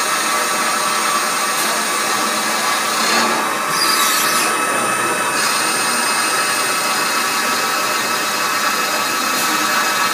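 Motor rotor turning machine running, the small rotor spinning between centres under the cutting tool: a steady machine whine made of several held high tones over a busy mechanical hiss. A brighter hissing stretch of about two seconds comes a few seconds in.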